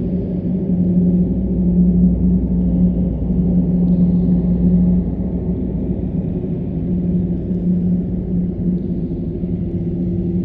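Spooky cave atmosphere sound effect: a low, steady droning rumble with a held hum-like tone, dark and unchanging, a little louder in its first half.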